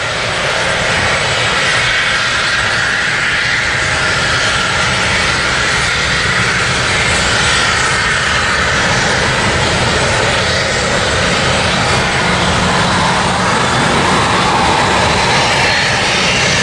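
Jet airliner engines running with a steady, loud rush of noise that holds level throughout.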